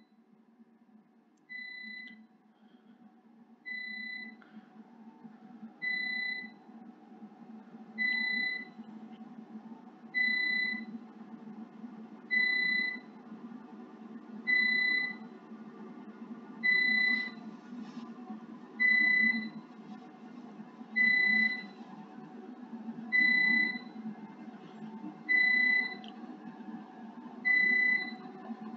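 Electronic beeps from the antenna measurement setup while the pattern acquisition runs: one steady-pitched beep of about half a second every two seconds or so, about fourteen in all, getting louder over the first ten seconds and then holding, over a low steady hum.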